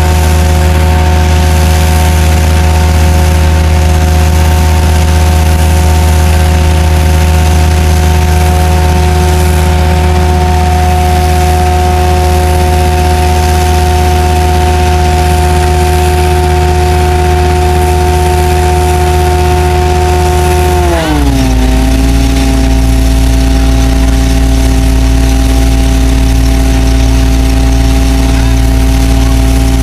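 Combination sewer jetting and vacuum truck running its vacuum and high-pressure water jetter together: a loud, steady machine drone with a whine that drops in pitch about twenty seconds in, then holds steady at the lower pitch.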